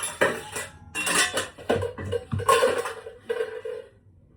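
Dishes and cutlery clattering and clinking in a few irregular bursts, fading near the end.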